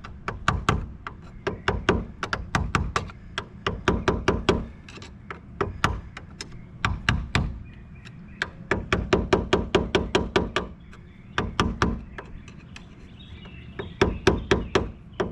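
Quick runs of light hammer taps, several a second with short pauses between runs: a battery terminal clamp being tapped down onto the battery post with a tapper.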